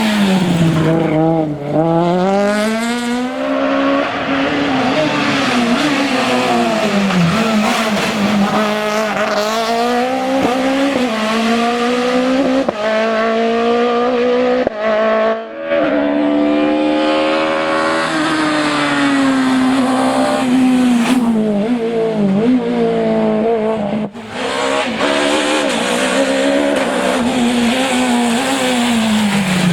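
Citroën C2 rally car engine at full throttle on a stage, the pitch climbing through each gear and falling on lifts and downshifts. The passes are spliced together, with short breaks about halfway and again about three-quarters of the way through.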